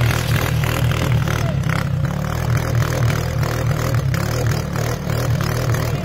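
Side-by-side UTV engine running under throttle while its wheels spin in deep snow, throwing snow: the buggy is stuck and digging in.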